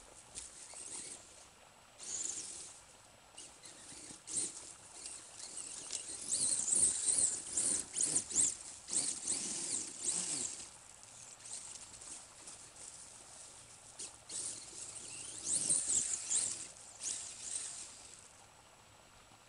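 A brushless electric RC off-road car driving in bursts on dirt hills: a high motor whine that rises and falls with the throttle, mixed with tyres scrabbling on the ground, loudest in two long runs, one mid-way and one near the end, with quieter stretches between.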